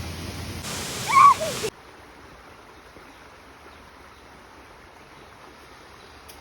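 Steady rushing water from a creek waterfall. About a second in, a brief loud voice call rises and falls over it. The sound then drops suddenly to a quieter, even rush of water.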